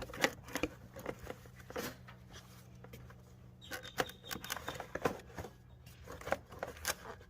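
Scattered clicks, taps and rustling of a small plastic engine-bay cover being unclipped and handled.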